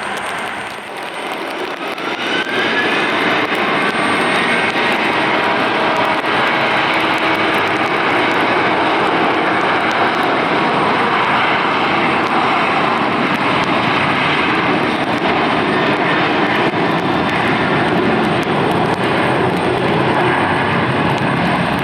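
Boeing 737-800 jet engines at takeoff thrust: a rising whine about two seconds in as they spool up, then loud, steady jet engine noise.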